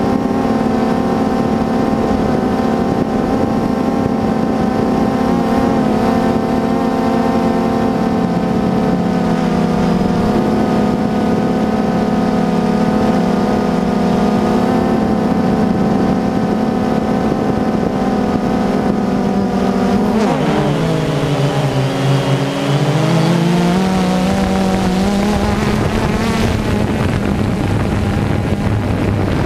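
Engine of a harvest vehicle running steadily at a constant pitch. About twenty seconds in, the pitch sags, as when the engine is loaded or throttled back, and climbs back up a few seconds later.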